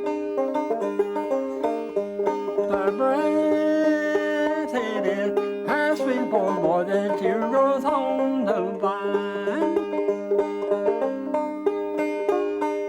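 Solo five-string banjo picking an old-time mountain tune, with a steady run of plucked notes; in the middle a second melody line wavers and slides in pitch over the banjo.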